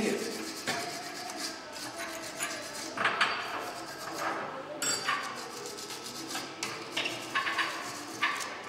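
Electric arc welding on steel: the arc crackling and sizzling in several short runs, as a small axe head is welded onto an iron-bar handle.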